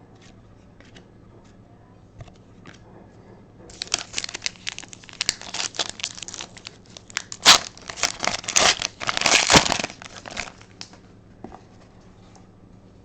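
Foil wrapper of an Upper Deck Artifacts hockey card pack being torn open and crinkled, a dense crackling that starts about four seconds in, lasts some six or seven seconds and is loudest near its end.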